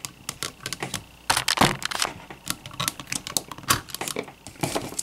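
Irregular hard-plastic clicks and clacks of a Masterpiece Soundwave toy being handled as its chest cassette door is opened, with a louder clack about one and a half seconds in.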